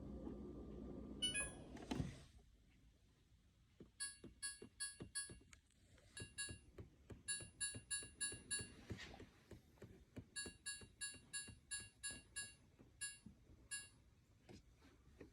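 Refrigerator's electronic control panel beeping: runs of short, high electronic beeps, several a second, with faint clicks between them. Before the beeps, a steady hum stops with a thump about two seconds in.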